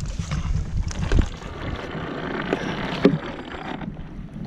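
Wind buffeting the microphone over water lapping at a kayak hull, heaviest for the first second or so, with a few light knocks, the sharpest about three seconds in.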